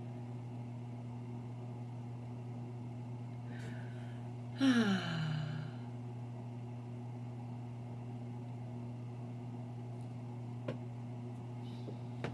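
A woman breathes in and lets out one voiced sigh that falls steadily in pitch, a little under halfway in. A steady low hum runs underneath, and two faint clicks come near the end.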